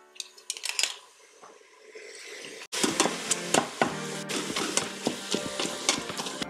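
Ground beef and sausage sizzling as they sear in a Pampered Chef Quick Cooker's pot, broken up with a Mix 'N Masher that clicks and scrapes against the pot. The sizzle starts suddenly about a third of the way in, after a quieter stretch with a few light clicks.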